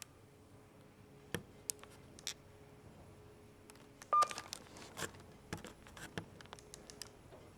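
KONE elevator car's beeper giving one short, steady beep about four seconds in, amid scattered light clicks and knocks over the faint steady hum of the car.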